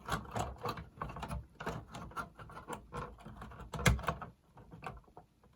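Small irregular clicks and taps of multi-plug connectors and their wires being handled and pushed back onto the circuit board inside a JVC RC-660 radio cassette boombox, with one louder knock about four seconds in.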